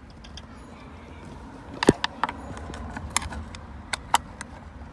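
A run of sharp clicks and knocks as metal and plastic parts of a car's shifter assembly are handled and pried during disassembly. The loudest knock comes about two seconds in, with several lighter clicks after it.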